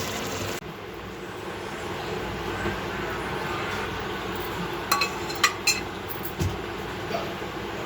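Beef cooking in a pot on the stove, a steady rumbling hiss, with three sharp metallic clinks of a utensil against the pot about five seconds in.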